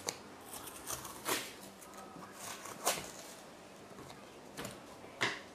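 Cardboard packaging panel being handled and lifted off the top of a 3D printer: low rustling with a few brief scrapes and taps.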